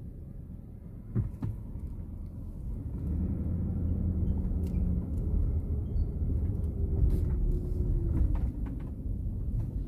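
Low rumble of an SUV's engine and running gear heard from inside the cabin, growing louder about three seconds in, with a few light clicks.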